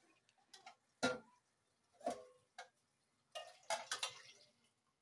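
Light clinks and knocks of aluminium cooking pots and a pot lid being handled on a gas stove, about half a dozen separate strikes, some with a short metallic ring.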